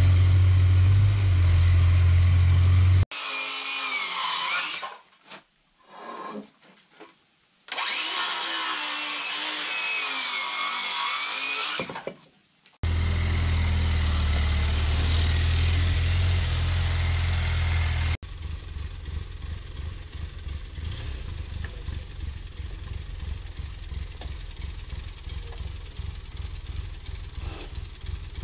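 Power tools working timber, heard in several short clips that cut in and out abruptly. A loud steady low hum alternates with a motor whining under load in a wavering pitch, and a quieter, steadier running with a fast low pulse fills the last ten seconds.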